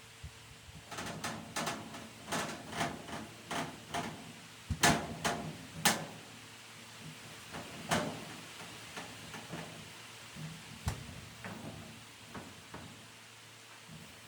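Kitchen cleaning clatter: a string of knocks and clacks as things are handled, set down and shut away, with the loudest bangs about five, six and eight seconds in, then thinning out toward the end.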